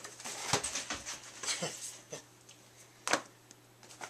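Clear plastic packaging crackling and squeaking as it is handled, in a few short sharp crackles, the loudest about three seconds in.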